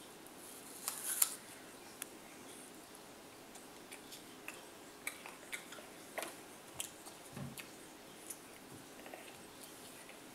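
A small child biting into and chewing a whole raw apple: a few crisp crunches about a second in, then small scattered crunches as he chews.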